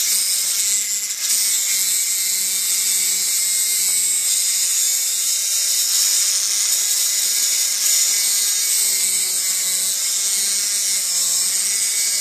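High-speed rotary tool with a thin abrasive cutoff wheel grinding through the tab of a soft-metal ring, a steady high-pitched hiss over the motor's whine.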